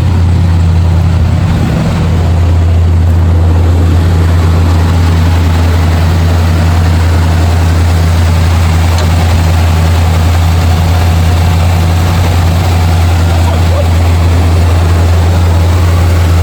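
A Chevy C20's V8 engine idling steadily, a constant low hum.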